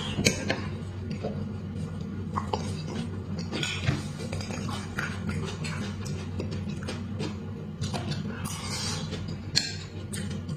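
Metal spoon clinking and scraping against a beef marrow bone as the marrow is scooped out, with wet mouth sounds of eating it. A steady low hum runs underneath.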